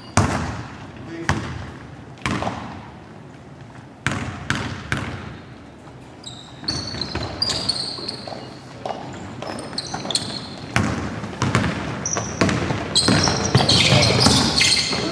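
A basketball bouncing on a gym floor in irregular thuds during play, with short high squeaks of sneakers on the court and players' voices, busiest near the end.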